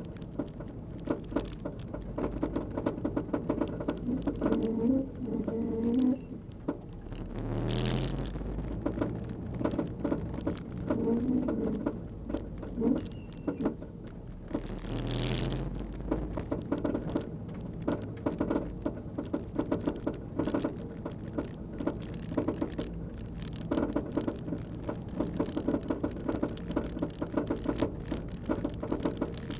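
Suzuki Swift Sport (ZC33S) driving, heard in the cabin: a steady engine and road drone with a loud, irregular clatter of quick clicks from the rear, like a limited-slip differential chattering, and a few heavier thumps. The rattle comes from a loose ride-height lock nut on an Öhlins rear damper.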